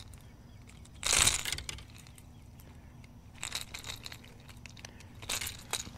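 Three short bursts of rustling and rattling handling noise, the loudest about a second in: a spotted bass and the treble hooks of a topwater popper being worked free by hand.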